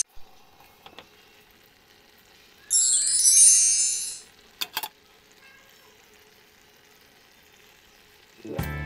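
Aluminium pot lid being lifted off a cooking pot, with metal scraping and ringing for about a second and a half, then two light clicks. Guitar music starts near the end.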